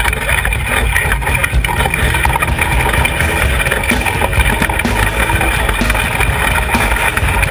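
Ski-bike's front ski scraping and rattling over packed snow and ice as it slides downhill, heard as a continuous rumble through a camera mounted on the bike, with wind on the microphone.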